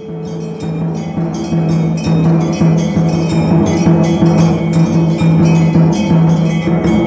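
Hindu temple aarti: a metal bell clanging and a drum beaten rapidly, several strikes a second, over a steady low tone. It starts abruptly and quickly grows loud.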